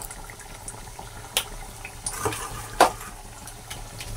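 Potato-and-flour dough pinwheels deep-frying in hot oil in a kadhai: a steady sizzle broken by a few sharp pops and crackles.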